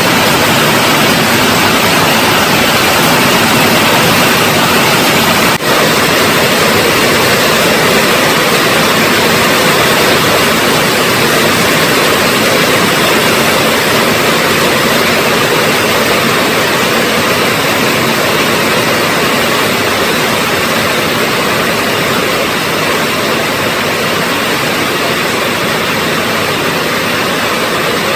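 Rain falling steadily, a loud, even hiss with a momentary dip about five and a half seconds in.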